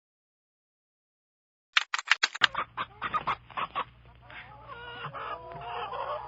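Chickens clucking over a low steady hum. The clucking starts after nearly two seconds of silence with a quick run of sharp clicks, then builds into overlapping wavering calls.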